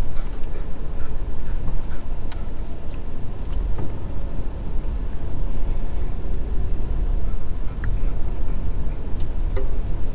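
Ford F-150 pickup creeping along a rough bush trail, heard from inside the cab: a steady low rumble of engine and tyres, with scattered small clicks and knocks.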